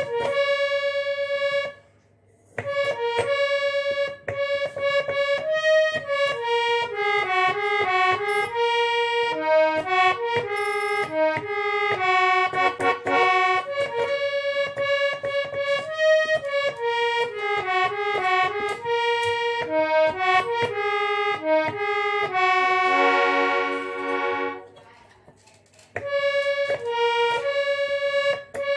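Harmonium playing a single-line melody note by note, with light clicks from the keys. There is a short pause about two seconds in. Near the end a chord of several notes is held and fades out, and the tune starts again.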